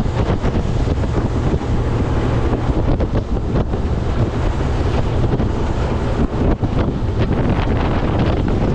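Wind buffeting the microphone on a small aluminium boat under way, over the steady low drone of its 40 hp Yamaha outboard and water rushing along the hull.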